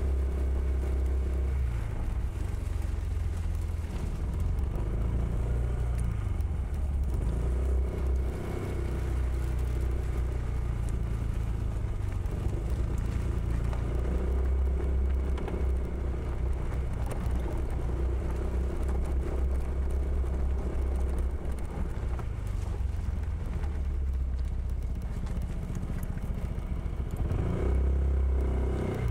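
Honda PCX160 scooter's single-cylinder engine running steadily as it is ridden, with a low rumble that eases a little a few times.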